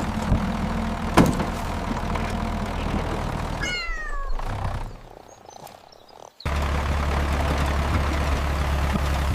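A cat meows once, a short call falling in pitch, about four seconds in, over a steady low engine-like hum. The hum drops away just after the meow and comes back louder about two seconds later.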